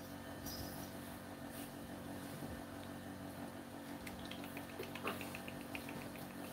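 Steady low mechanical hum, with a quick run of faint high chirps, about eight a second, starting about four seconds in.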